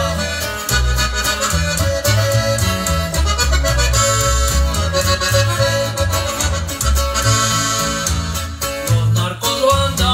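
Norteño corrido music in an instrumental passage, with no singing: an accordion plays the lead over a steady bass line and guitar.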